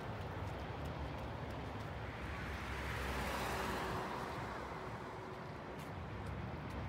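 A car passing on the road, its tyre and engine noise swelling to a peak about three and a half seconds in and then fading, over a steady low rumble.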